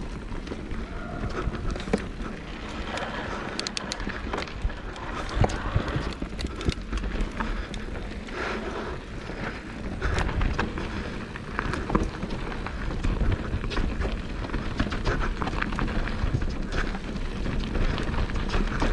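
Mountain bike riding down a dirt trail, heard from the rider's GoPro: constant tyre noise over dirt with many sharp clicks and knocks from the bike rattling over rough ground, and a low rumble of wind on the microphone.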